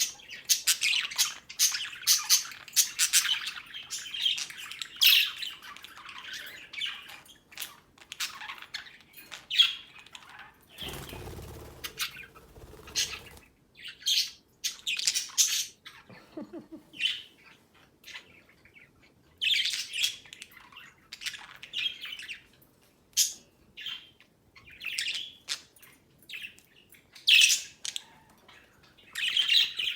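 Budgerigars chattering with many short, high chirps and squawks, with a stretch of noise lasting about two seconds, about eleven seconds in.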